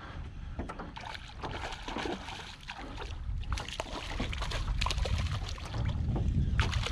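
Hooked flounder splashing and thrashing at the water's surface as it is reeled in beside a small boat, the splashing starting about halfway through. Wind buffets the microphone, heaviest near the end.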